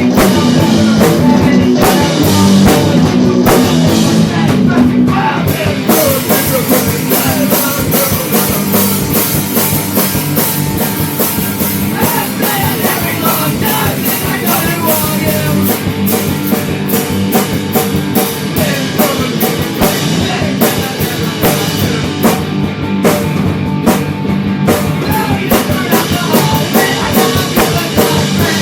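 Rock band demo recording playing, driven by a drum kit, with guitar.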